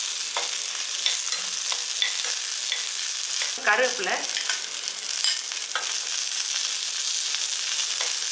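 Shallots, garlic and dried red chillies sizzling in a little oil in a metal pot, with a metal spatula stirring and knocking against the pot repeatedly. About three and a half seconds in, a brief pitched scrape of the spatula is the loudest sound.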